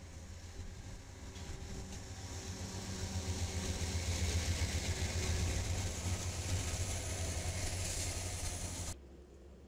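Union Pacific diesel freight locomotives passing close by under power: a steady low engine drone with wheel and rail noise, growing louder as the units go past. The sound cuts off suddenly near the end.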